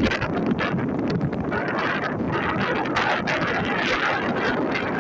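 Strong coastal storm wind buffeting a phone's microphone, a loud, rough, gusting rush that flickers in strength throughout.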